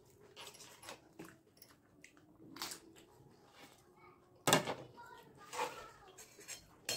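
Close-up eating sounds of chaat: wet chewing, with small clicks of spoons on plates. About four and a half seconds in comes the loudest sound, a sudden slurp as yogurt and chutney are drunk off a tilted paper plate.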